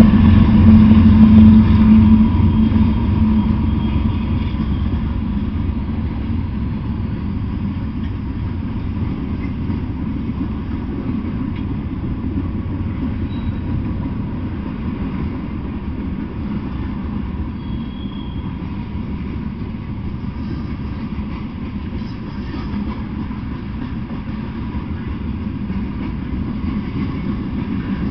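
Freight train passing. The diesel locomotives' engines drone loudest for the first few seconds, then give way to the steady rumble of tank cars and covered hoppers rolling along the rails.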